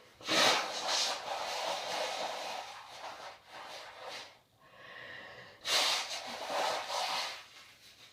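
A person with a head cold blowing their nose: two long, noisy blows with a shorter one between them.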